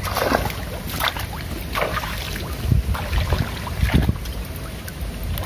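Hooked bawal (pacu) thrashing and splashing at the surface of the pond as it is played toward the bank, with a few sharp splashes in the first two seconds. Wind buffets the microphone throughout.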